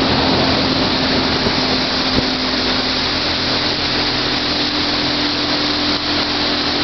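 Boat's outboard motor running steadily under way, a constant hum with a rushing hiss over it.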